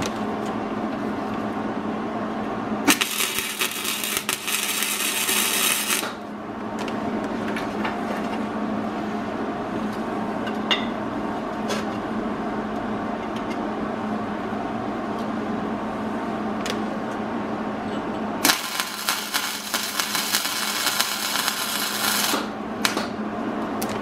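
Two bursts of wire-feed (MIG) arc welding, each lasting about three to four seconds, one near the start and one late on, crackling as rebar hooks are welded onto a steel lid. A steady hum runs underneath between them.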